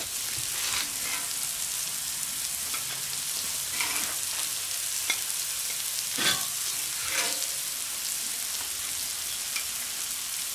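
Pork fillet medallions sizzling on a hot steel fire-plate grill, a steady hiss, with a few short clicks of metal tongs lifting food onto a plate.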